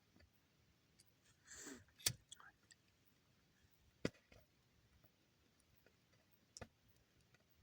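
Near silence broken by a short rustle and three separate sharp clicks, a couple of seconds apart.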